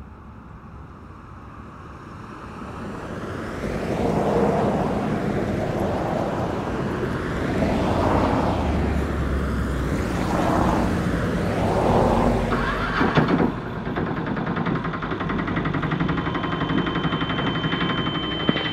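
Road traffic heard from inside an auto-rickshaw, with vehicles swelling past several times. There are a few sharp clicks about two-thirds of the way through, and a steady high tone comes in near the end.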